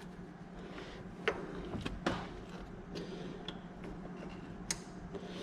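Scattered light clicks and taps of a plastic electrical connector being handled and pushed onto the radiator cooling fan under the hood.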